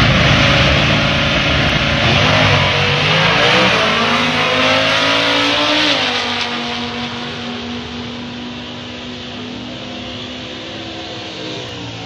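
V10 Dodge Challenger Drag Pak drag car at full throttle down the strip. Its engine note climbs and drops back at each gear change, then fades as the car pulls away.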